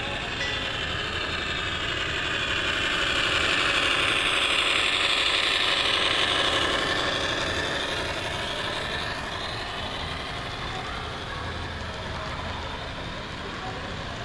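HO scale model freight train passing close by on the layout track: a steady running rumble of wheels and locomotive that swells to its loudest about five seconds in as the train goes past, then slowly fades as the cars roll on.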